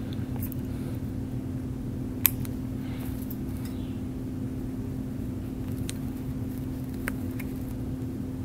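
Steady low hum of room noise, with a few sharp metallic clicks from a needle holder and forceps being handled during suturing, the loudest about two seconds in.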